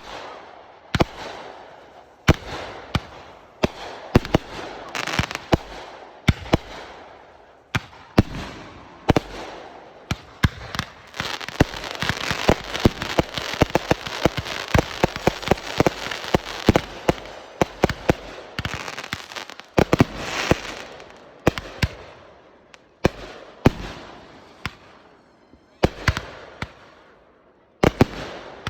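Backyard consumer fireworks going off: a long run of sharp bangs with crackling hiss between them. The bangs come thickest around the middle and thin out near the end.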